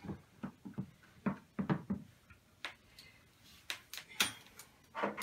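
Irregular clicks and taps of a light-stand tripod's metal centre column, locks and ball head being handled and adjusted: about fifteen short knocks in quick, uneven succession.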